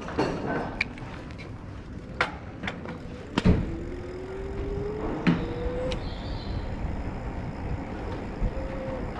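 Riding sound of an electric bike on a town street: a steady rush of wind and tyre noise with several sharp clicks and knocks, and a slowly rising whine for about two seconds in the middle.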